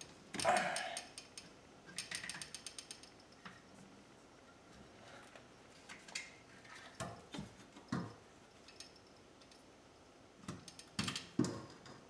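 Come-along ratchet clicking in a quick run of pawl clicks about two seconds in, as the motor is winched up, with scattered metal knocks and clanks around it, the loudest just after the start and near the end.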